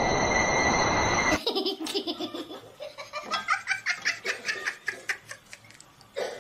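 A person laughing hard in a rapid string of short, high-pitched bursts, fading toward the end. Before it, about the first second and a half is a dense noisy sound with steady high tones, which cuts off suddenly.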